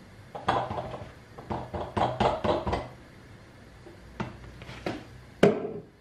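Knocks and taps of a plastic sugar container and a glass being handled while sugar is measured out: a quick run of knocks in the first three seconds, a few lighter taps later, and one sharp, louder knock just before the end.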